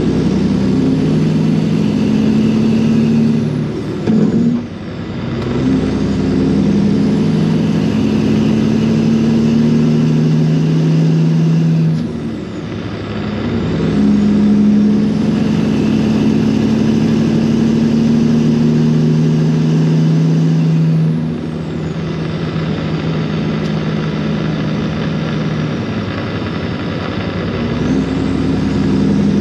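Semi truck's diesel engine running at highway speed, a steady drone whose note dips and shifts pitch briefly about four, twelve and twenty-one seconds in.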